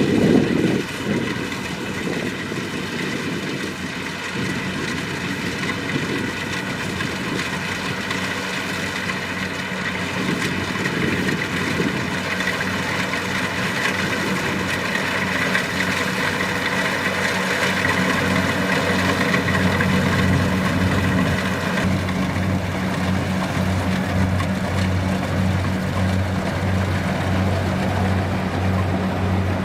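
Kubota DC-70 Plus combine harvester's diesel engine running steadily under the hum and whine of its threshing machinery. About three quarters of the way through, the high whine drops away and a regular low throb of roughly two beats a second sets in.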